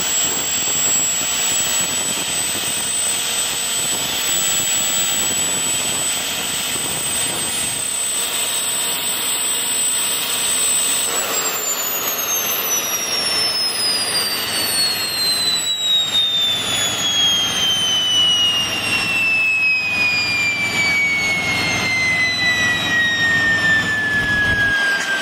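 Small gas turbine engine running with a loud roar and a high steady whine, then shut down about eleven seconds in, its whine falling steadily as the turbine spools down.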